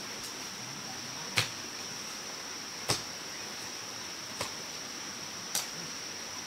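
Four sharp knocks, one about every one and a half seconds, over a steady high-pitched whine.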